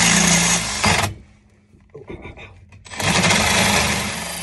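Cordless drill boring a 3/4-inch hole through metal, with the bit cutting and throwing hot filings. It runs in two spurts: about a second of drilling, a pause, then a longer run from about three seconds in.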